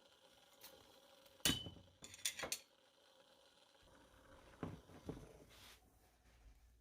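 A handful of clinks and knocks of kitchenware being handled. The loudest comes about one and a half seconds in, followed by a quick cluster of knocks just after two seconds and a few softer ones later.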